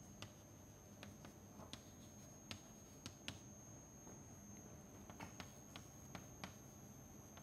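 Chalk writing on a chalkboard: faint scattered taps and short scrapes as letters are written, coming closer together in the second half.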